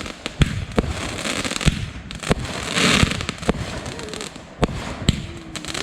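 Consumer fireworks going off: a loud, rapid, irregular series of sharp bangs and pops, several a second, with a denser burst of crackling and hiss about three seconds in.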